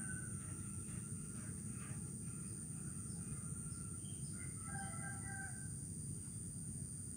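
Faint calls of chickens and a rooster, with a cluster of short calls about five seconds in, over a steady high-pitched insect hum and a low background rumble.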